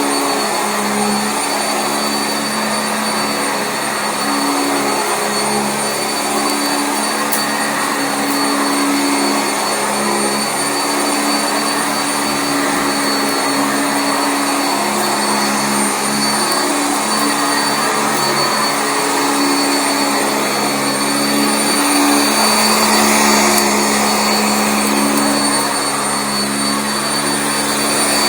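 Sanitaire SC679J commercial upright vacuum running steadily over carpet: a continuous motor hum and rush of air with a thin high whine, rising a little in level about three-quarters of the way through.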